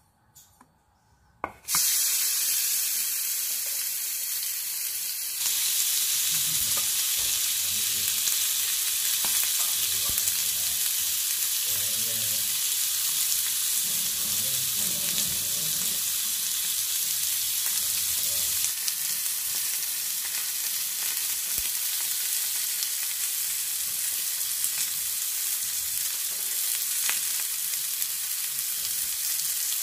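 Marinated chicken drumsticks sizzling on a hot ridged grill pan. The sizzle starts suddenly about two seconds in and gets louder a few seconds later, then holds steady.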